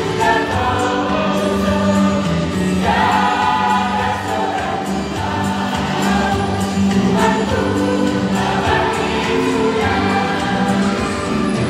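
Mixed church choir of women and men singing together in parts, several voices holding notes at once.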